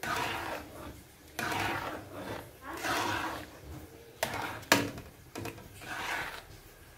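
Metal spoon stirring and scraping thick, wet mashed purple yam around a metal pan, in repeated swishing strokes about a second and a half apart. There is one sharp clink of the spoon against the pan a little past halfway.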